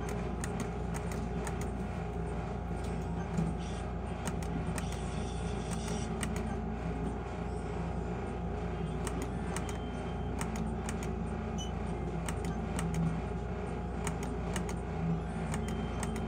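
Pennsylvania skill game machine in play: a steady low hum with a few steady electronic tones, and sharp clicks scattered irregularly through it.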